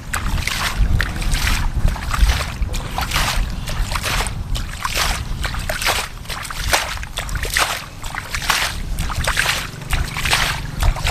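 Shallow muddy water splashing and sloshing irregularly as hands and legs work through it while catching fish by hand, with a low rumble underneath.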